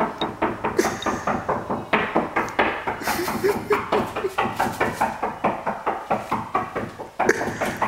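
Rapid hand drumming: fast runs of knocks and slaps on hard surfaces, several strikes a second, keeping an even rhythm.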